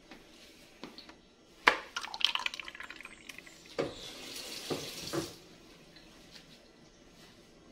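A sharp knock, then water splashing and running for a couple of seconds in a kitchen sink, with a few knocks among it.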